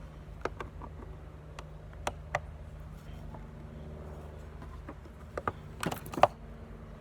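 Screwdriver and plastic parts clicking and knocking while screws are worked out of a plastic piece: scattered single clicks, then a cluster of louder knocks about five and a half to six seconds in. A steady low hum runs underneath.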